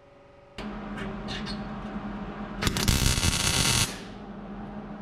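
A welder striking a single short tack weld on sheet-steel floor pan: a burst of crackling arc noise a little over a second long, about halfway through. A steady hum comes on under a second in and carries on under it.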